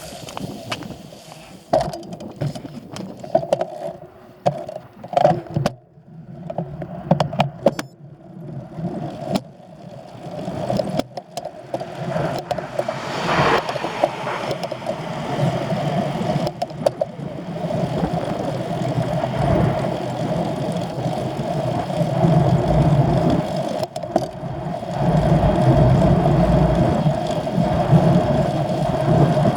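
An engine running with a steady drone that grows louder over the second half, with scattered knocks and clicks in the first third.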